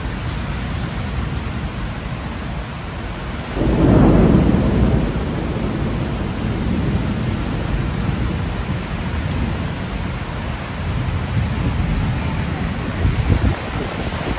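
Heavy rain falling steadily, with a loud rumble of thunder about three and a half seconds in that fades away over a couple of seconds.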